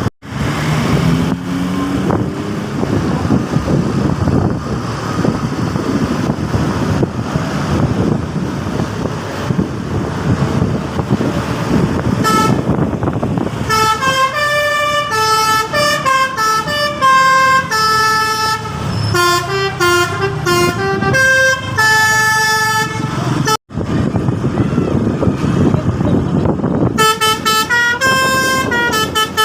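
Telolet bus horn, a multi-tone air horn, playing a tune of quick stepped notes from about halfway in, cutting out briefly, then starting again near the end. Before the tune there is steady vehicle noise of the bus running.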